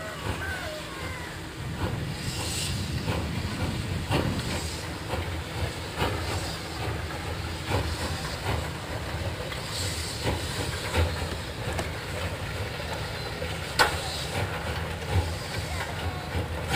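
Small Orenstein & Koppel 0-8-0T narrow-gauge steam tank locomotive working its train: a steady rumble with steam hissing and irregular knocks and clanks, the sharpest knock about 14 seconds in.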